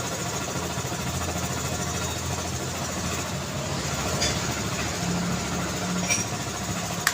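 City street traffic: vehicle engines running with a steady wash of road noise, and a few short sharp clicks in the second half.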